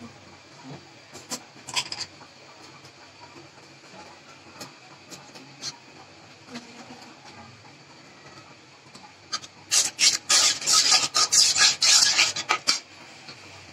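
A flat metal spatula scraping and stirring in an aluminium pot of onion paste frying in oil. A few light taps come early, then about ten seconds in there is a run of rapid, loud scraping strokes lasting about three seconds.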